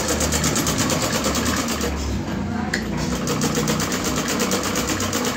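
A black domestic sewing machine stitching cloth, the needle running fast and evenly in a rapid clatter of stitches.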